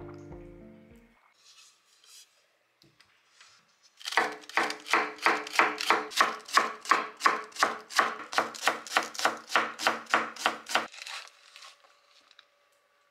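Kitchen knife shredding cabbage on a wooden cutting board: a run of quick, evenly spaced chops, about three a second, that starts a few seconds in and stops near the end.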